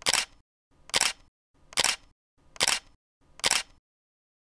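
Camera shutter clicking five times at an even pace, a little under a second apart, then stopping near the end.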